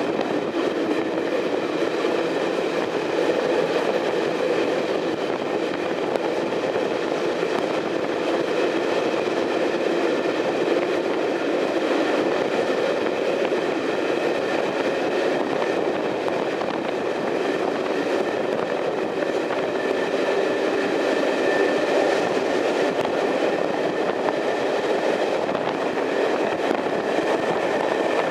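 Passenger train running steadily on the rails: an even rumble of wheels on track with a steady tonal hum, no sudden changes.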